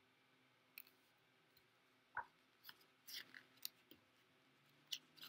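Near silence, broken by a scattering of faint clicks and paper rustles from a hardcover picture book being handled and shifted in the hands, the loudest a little over two seconds in.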